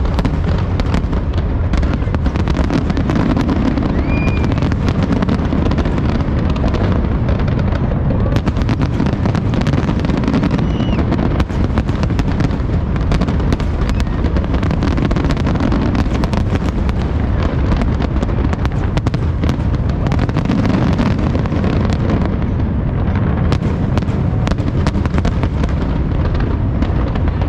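Fireworks going off continuously: a dense, rapid run of bangs and crackles over a steady low rumble.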